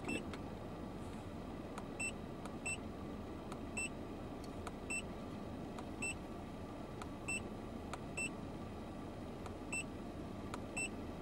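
Autel MD802 scan tool's keypad beeping as its arrow button is pressed repeatedly to scroll down a menu list. There are about ten short, identical high beeps, spaced unevenly roughly a second apart.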